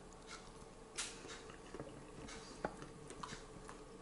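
A person chewing a mouthful of kebab meat slices: faint, wet mouth clicks and squishes, a few sharper ones scattered through, over a faint steady hum.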